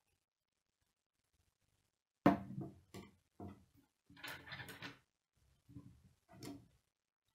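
Plastic K'nex rods and connectors knocking and clicking against each other and the wooden table while being handled. A sharp knock about two seconds in is the loudest, followed by a string of shorter clicks and rattles.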